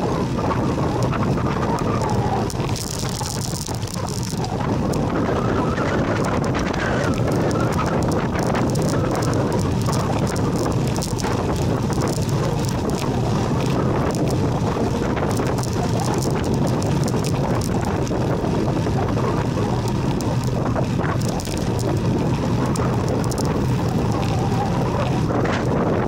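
Steady wind buffeting on the microphone of a rider moving along an asphalt road, mixed with frequent small rattles and knocks from the bumpy surface.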